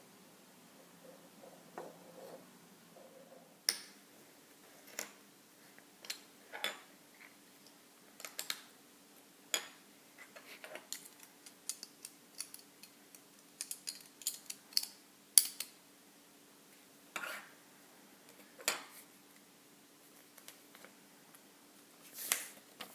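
Lego bricks clicking and clattering as the pieces are handled, in scattered sharp clicks with pauses between them. A faint steady hum runs underneath.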